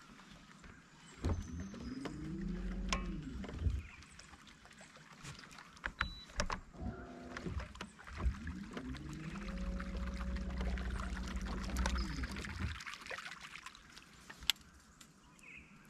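A boat's electric trolling motor run in two short bursts, each winding up in pitch and back down, with small clicks and knocks between.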